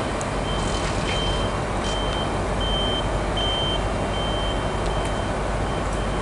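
A high electronic warning beep repeating about once a second over a steady background of railway station noise.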